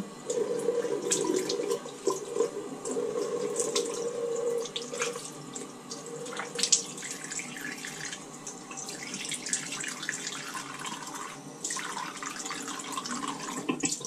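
Tap water running into a bathroom sink while the face is rinsed with handfuls of water, with irregular splashes over the steady flow.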